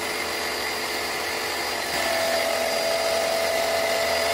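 APR AP73 electric pressure washer motor and pump running steadily, measured at about 88 dB from one metre. It grows slightly louder about halfway through, with a steady whine coming in.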